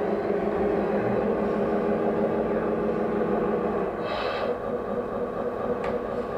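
1/16-scale RC trucks driving, a steady humming drone of their motors and gearing that weakens about four seconds in, with a brief hiss around then and a couple of faint clicks near the end.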